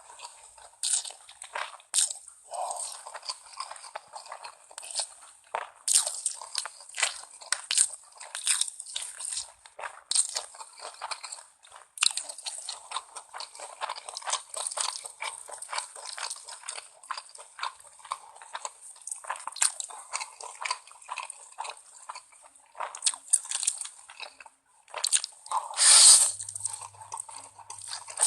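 Ramen being eaten: wet chewing, biting and mouth smacks in a dense run of short crackly clicks, with a longer, louder burst near the end.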